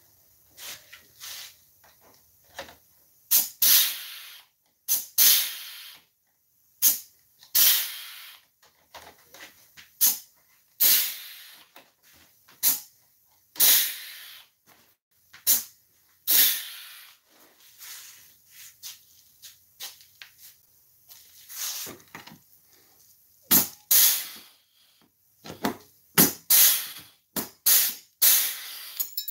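Pneumatic pop-rivet gun setting rivets in a tractor seat's metal frame: a short hiss of air with each pull, repeated about once a second or so, some with a sharp snap as the mandrel breaks.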